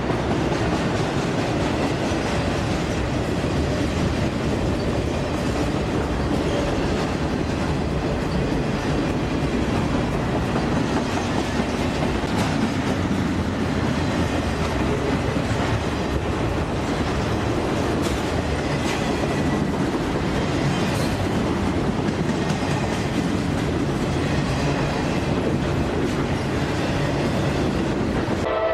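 Intermodal freight train rolling past at close range: a steady rumble of steel wheels on rail, with light clicks over the rail joints partway through.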